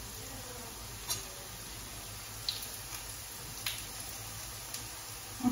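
Quiet kitchen handling: five soft, short clicks and taps, roughly one a second, over a low steady hum.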